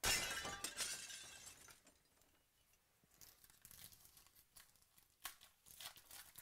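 Plastic wrapper of a trading-card pack being torn open and crinkled by hand, beginning with a sudden loud crackle that fades over about a second and a half, then softer crinkles and sharp snaps as the cards are slid out.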